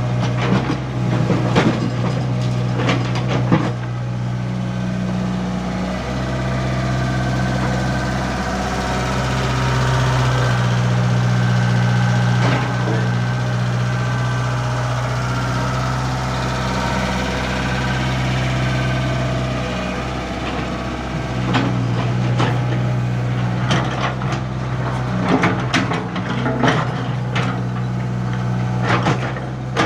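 Komatsu PC75 mini excavator's diesel engine running steadily while it works, with bursts of clattering knocks from the bucket at work in the first few seconds and again over the last ten seconds or so.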